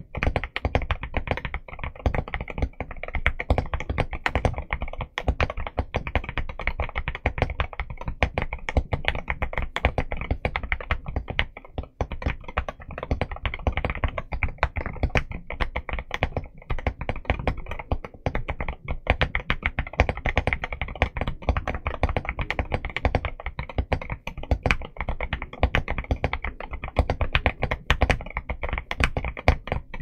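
Steady fast typing on an Akko MU02 mechanical keyboard, which has a wooden case, Akko Rosewood linear switches and MOA-profile dye-sub PBT keycaps. It is a dense, continuous patter of key strikes bottoming out.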